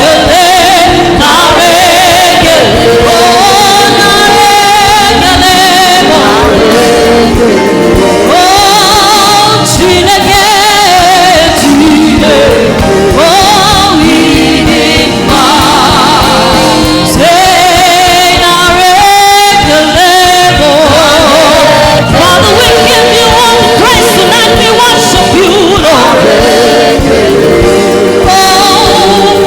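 Live gospel music: a choir singing over a band, the voices gliding and holding notes over a steady beat.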